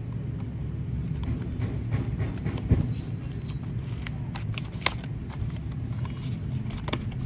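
Small paperboard box being opened by hand: card flaps creaking and paper rustling as the inner tray slides out, with scattered crisp clicks and a sharper snap about two and a half seconds in and again near five seconds, over a steady low hum.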